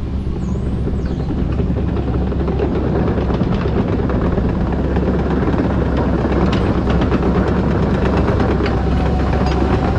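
Kobelco SK85 MSR excavator's diesel engine running steadily while working, with a few scattered light clicks.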